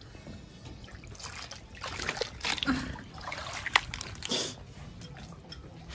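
Water trickling and splashing irregularly, with a sharp click a little before four seconds in.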